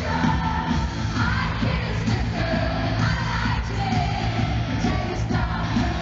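Live pop concert heard from the audience: a female lead vocal sung over loud, bass-heavy backing music.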